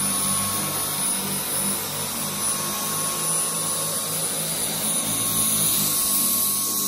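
Dyson V10 cordless stick vacuum running steadily: an even rush of air with a thin high-pitched motor whine over it.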